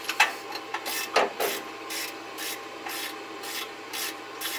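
Ratchet wrench on a long extension being cranked back and forth, its pawl rasping in even strokes about twice a second, as a spark plug is worked loose or run in.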